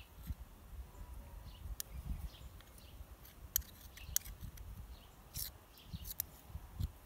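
A spoon clicking and tapping against a mixing bowl while the last of a muffin batter is scraped out, a handful of sharp light clicks spaced irregularly. Faint birdsong and a low wind rumble sit underneath.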